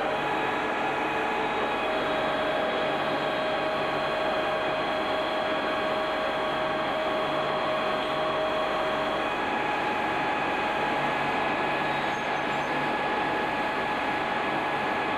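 Metal-turning lathe running at a steady speed, giving a whine at several pitches over a dense mechanical noise. One of the tones drops out about nine seconds in.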